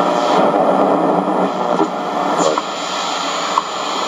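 Shortwave static and hiss from a Radio Shack 12-795 multiband receiver's speaker while it is tuned across the shortwave band near 10 MHz, broken by a few short clicks.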